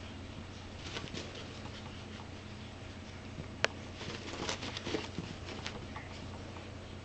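Rat terrier scrabbling about and pattering while playing with a sock ball: scattered light clicks and rustles, one sharp click about three and a half seconds in, and busier scuffling a little after.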